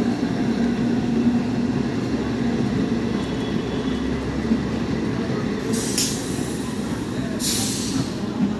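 Eastern Railway electric multiple-unit local train rolling along the platform, a steady rumble of wheels and running gear with a low hum. Two short bursts of hiss come about six and seven and a half seconds in.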